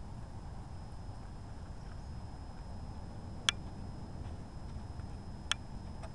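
Gray squirrel feeding from a plastic tub: two sharp clicks about two seconds apart over a steady low rumble.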